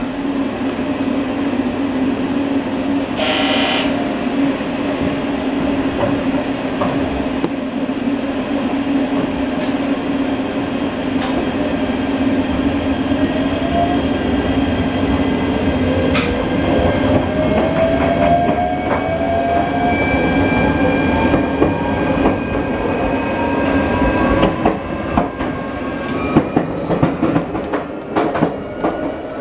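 JR Shikoku 8600 series electric train at the coupling between two units, pulling away from a station: a steady hum, with the inverter-driven motors' whine rising in pitch as it accelerates from about halfway through. A brief high tone sounds about three seconds in, and wheel clicks over rail joints come quicker near the end.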